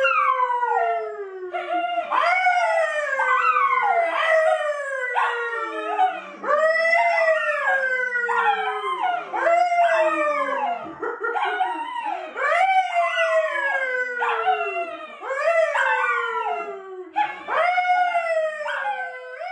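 A brown poodle and a yellow Labrador howling along with a man who howls with pursed lips. The voices overlap in a long string of howls, each one sliding down in pitch.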